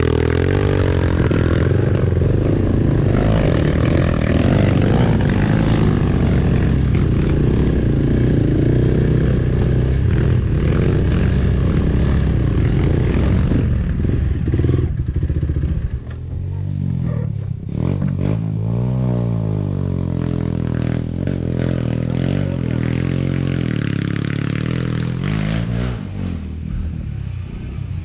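Dirt bike engines running hard on a steep trail climb. The sound is loudest in the first half; after that the engine note rises and falls repeatedly as the throttle is worked.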